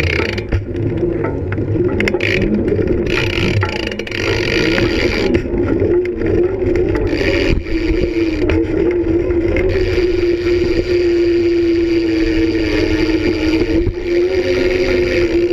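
BMX bike rolling over concrete ramps with wind buffeting the riding camera's microphone: a steady, wavering hum with scattered knocks.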